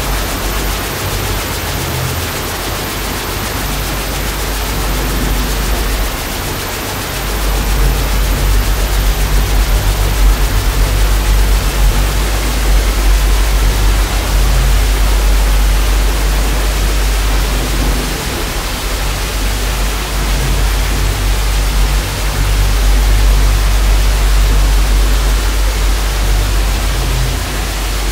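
Loud, steady hiss of television static, with a deep low drone beneath it that dips briefly about six seconds in and then returns.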